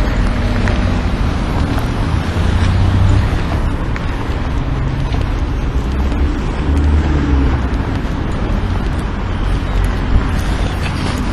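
Wind rumbling on the microphone over road traffic noise, with a short knock about ten seconds in.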